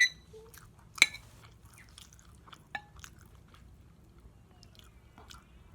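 Cutlery clinking against a dish three times, sharp with a brief ring, the second clink about a second in the loudest, between soft chewing and mouth sounds of eating pancakes.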